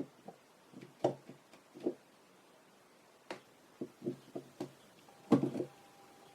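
Scattered light clicks and taps of a camera lens's parts and small tools being handled during reassembly. A quick run of small ticks comes in the middle, and the loudest knock comes about five seconds in.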